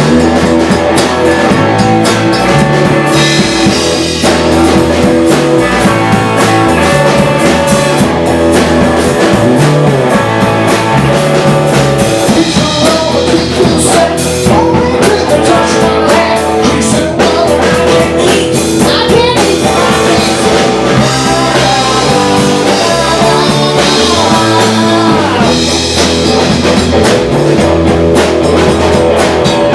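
Loud rock music with electric guitar, bass and drum kit, with some singing.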